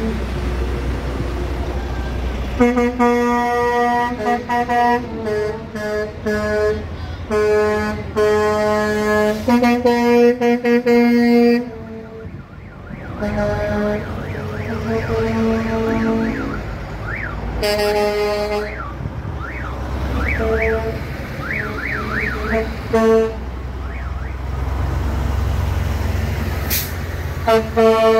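Heavy prime-mover trucks rolling slowly past with a steady low diesel engine rumble, their air horns sounding in a run of long blasts for several seconds and again twice later. In between, a rising-and-falling siren-like tone warbles quickly over the engines.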